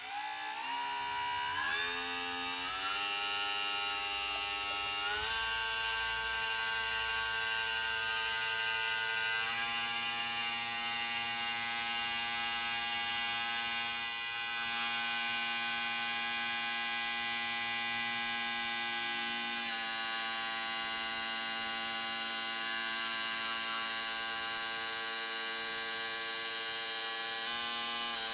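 Small brushless motor driving a 3D-printed resin gear pump that is pumping soapy water, a steady electric whine. The whine climbs in pitch in several steps over the first few seconds, then holds steady, with small pitch shifts about ten and twenty seconds in.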